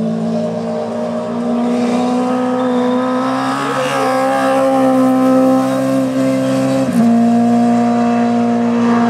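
Four-stroke engine of a racing sidecar outfit running hard at high revs up the hill-climb course, its pitch shifting briefly about four seconds in as it goes by.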